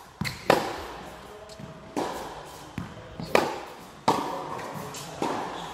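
Tennis ball struck by rackets and bouncing on an indoor court: a run of sharp hits, about seven in a few seconds, each echoing briefly around a large hall.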